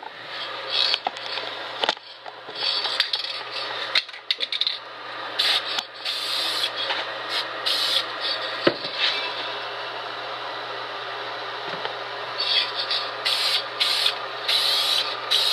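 Aerosol spray can of Dupli-Color adhesive promoter hissing in short bursts, with a longer steady spray in the middle, as a clear coat is put on a plastic part.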